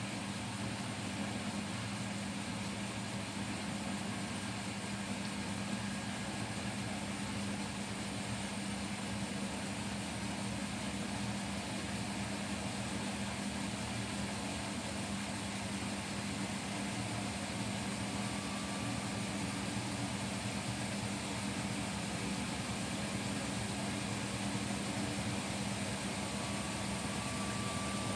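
Bosch Serie 6 front-loading washing machine running a cotton 60° wash: a steady mechanical hum with a low drone, and a faint, slightly rising whine twice in the second half.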